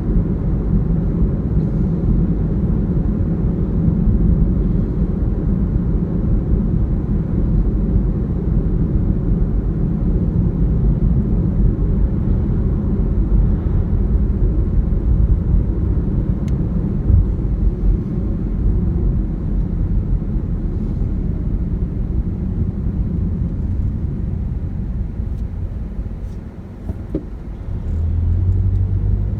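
Steady low road and engine rumble heard inside a moving car. The rumble dips near the end, then a steadier low hum takes over.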